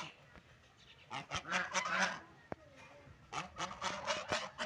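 Ducks quacking in short, repeated calls: a cluster about a second in and a quick run of quacks near the end.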